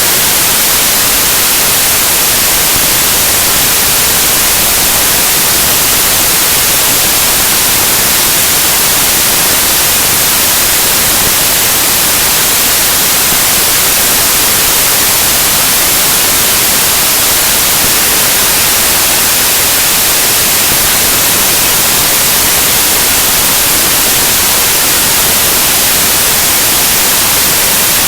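Raw bytes of an image file played back directly as audio samples by Binary Waterfall: a steady, loud hiss like radio static, with no tones or rhythm.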